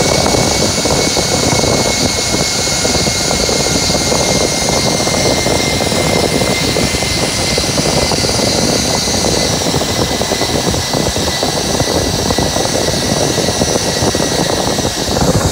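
Zipline trolley pulleys running fast along the steel cable: a steady high whine that sinks slightly in pitch, under heavy wind rushing over the microphone.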